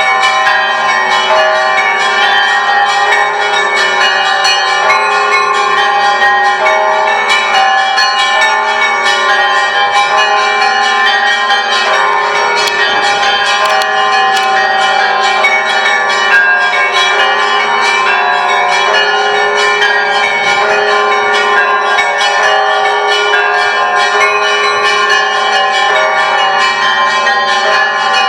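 Orthodox church bells of the Great Lavra Bell Tower ringing together: many bells struck in a rapid, continuous peal over the lingering tones of larger bells.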